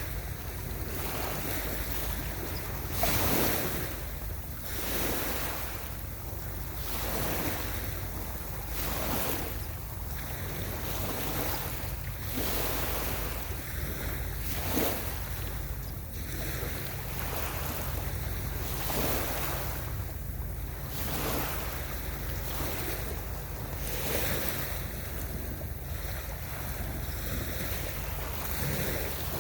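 Small waves breaking and washing up a beach in repeated surges of surf hiss, over a steady low rumble of wind on the microphone.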